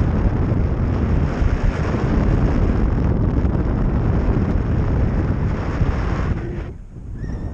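Loud, steady wind noise on the camera microphone from the airflow of paraglider flight, easing briefly near the end.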